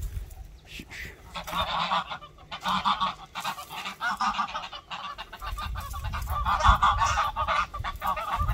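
A flock of domestic geese honking, a chorus of many overlapping honks that sets in about a second and a half in and keeps going, as the geese come up to be fed corn.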